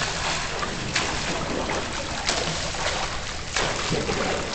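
Swimmer's steady splashing and churning water, with three sharper splashes at an even pace of about one every second and a quarter, the rhythm of his arm strokes.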